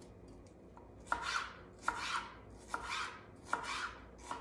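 Ceramic chef knife slicing a red bell pepper into strips on a cutting board: regular strokes, each a sharp tap with a short crisp hiss, starting about a second in and coming a little under once a second.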